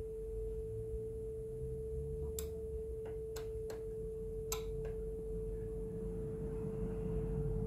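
Steady single-pitch calibration tone from the Akai GX-F90 cassette deck, recorded and heard back off tape while its record-calibration trimmers are adjusted, over a low hum. A few small clicks come between about two and five seconds in.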